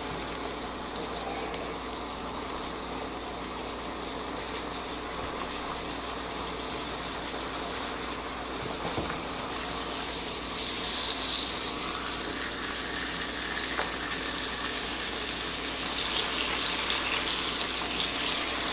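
Ground beef sizzling in pooled grease on an open George Foreman contact grill: a steady hiss that gets a little louder about ten seconds in, with a few light spatula scrapes against the grill plate.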